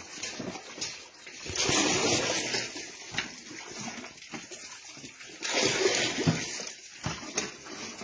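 Floodwater splashing and sloshing as it is scooped up in plastic buckets and basins and poured out, in two longer spells of splashing, about one and a half seconds in and again about five and a half seconds in.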